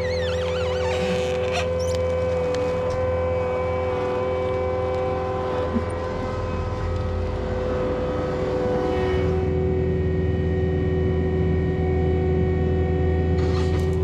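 Caterpillar compact track loader's diesel engine running under load with a steady high hydraulic whine as its bucket pushes logs; the whine shifts to a lower pitch about nine seconds in.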